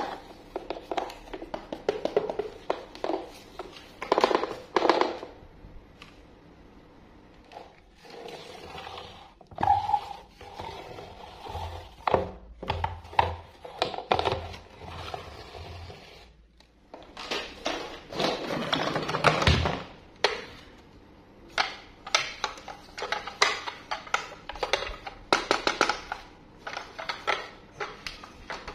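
Plastic toy bus handled with gloved hands: irregular clicks, knocks and scrapes, with the toy pushed along a tabletop on its wheels.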